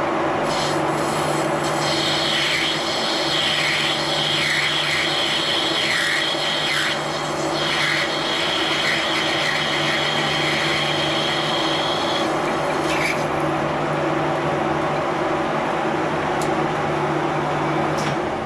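Metal lathe running while parting off a bronze valve guide. A high scraping tone from the cutting tool rides over the lathe's steady hum for about the first twelve seconds. After that the lathe runs on alone, and it stops near the end.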